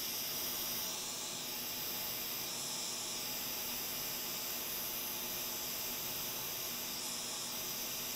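Hot air rework station blowing a steady hiss of hot air onto the NB7N HDMI chip of an Xbox Series X motherboard, heating the board until the unleaded solder under the chip melts so the chip can be lifted off.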